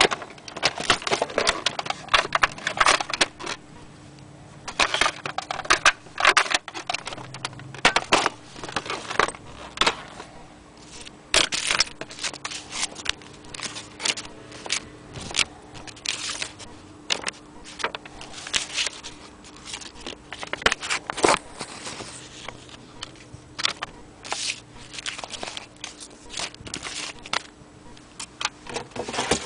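Irregular rustling, crackling and clicking as packaging is handled: a cardboard box, a paper booklet and polystyrene packing pieces shifted about, with plastic parts knocking together.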